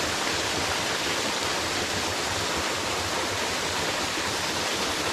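Small waterfall and rocky brook rushing steadily, an even wash of falling water.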